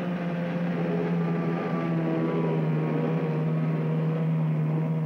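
Boat engine running at a steady, even pitch, a constant hum.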